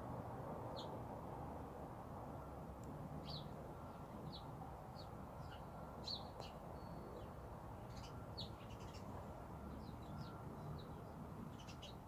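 Small birds chirping outdoors: short, high chirps scattered irregularly, coming more often after the first few seconds, over a steady low background rumble.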